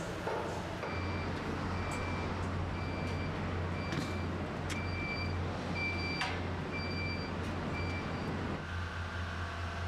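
An electronic warning beeper sounds short high beeps, about one every 0.8 seconds, over a steady low machine hum. The beeping stops near the end.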